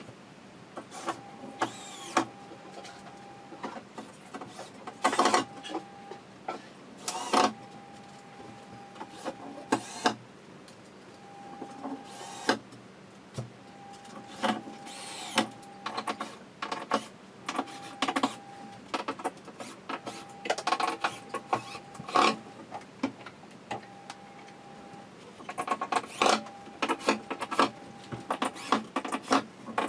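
A cordless screwdriver whirring again and again in short runs of one to two seconds as screws are driven into chipboard furniture panels, among sharp clicks and knocks from handling the panels and fittings.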